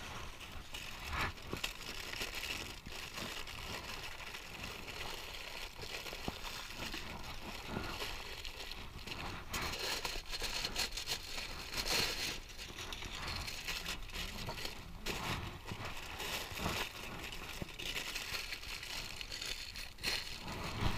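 Aluminium foil crinkling and rustling as it is handled and folded by hand, in irregular bursts, louder around ten to thirteen seconds in.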